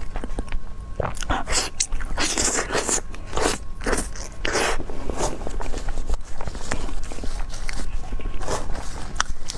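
Close-miked biting and chewing of a soft custard-filled cream bun: wet mouth noises in clusters of quick clicks, busiest in the first half and again briefly near the end.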